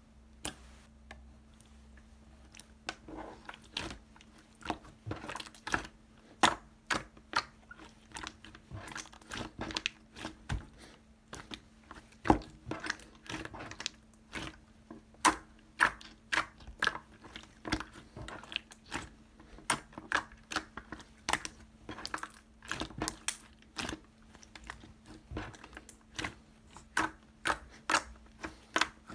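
Clear slime being pressed and stretched by hand, giving irregular sticky clicks and pops, one or two a second, over a faint steady hum.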